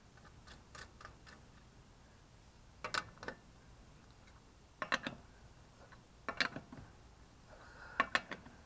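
Socket ratchet clicking in four short bursts of a few ticks each, as the lug nuts are run onto a car wheel.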